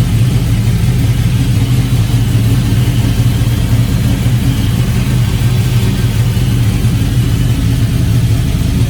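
Porsche Cayenne's engine idling steadily after being jump-started from a flat battery.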